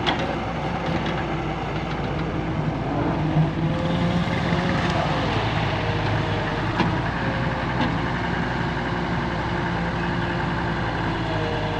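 Volvo EW130 wheeled excavator's diesel engine running steadily while it digs, with a few sharp knocks.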